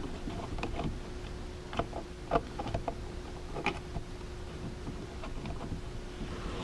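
Light, scattered clicks and taps of small parts and tools being handled on a workbench, over a faint steady hum.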